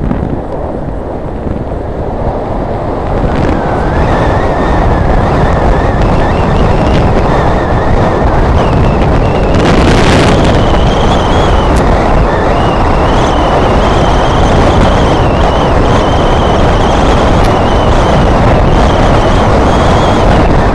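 Wind and road noise of a moving bike ride, a steady low rush that grows louder over the first few seconds. A thin high whine comes in a few seconds in and steps up in pitch about eight seconds in.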